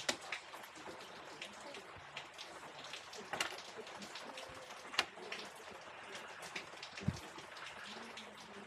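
Rain falling, an even hiss with irregular sharp ticks of drops striking a hard surface, and a soft low thump about seven seconds in.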